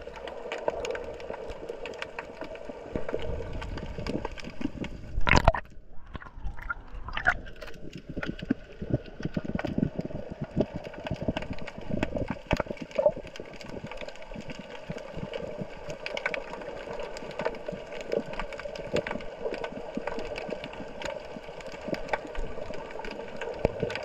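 Underwater sound picked up by a GoPro in its housing: dense crackling clicks over a steady hum, with one loud knock a little over five seconds in.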